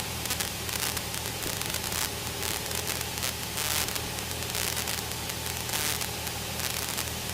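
Steady drone of a Cessna's piston engine and propeller inside the cabin, heard under an even hiss of static from the headset audio.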